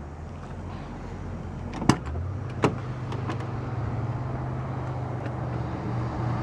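Rear door of a 1991 Chevrolet Caprice Classic being unlatched and opened: two sharp clicks about two and two and a half seconds in. Under them a steady low hum of another vehicle's engine grows slowly louder.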